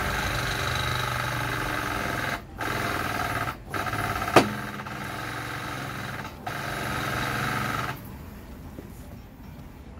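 Foot pump driving a hydraulic bushing puller, running steadily with a low hum and held tones. It cuts out briefly three times and stops for good about eight seconds in. A single sharp crack comes about four and a half seconds in, louder than the pump.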